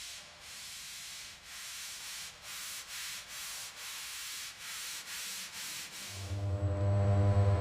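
Rasping, hissing strokes repeating about once or twice a second, like sanding. About six seconds in, music with a deep bass comes in over it.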